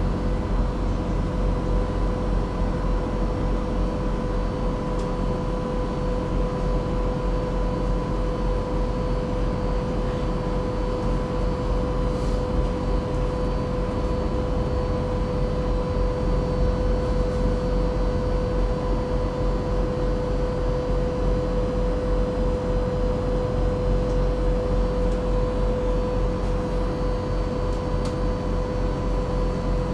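Inside a tram standing still: a steady electrical hum from its onboard equipment, with one constant whining tone over a low rumble.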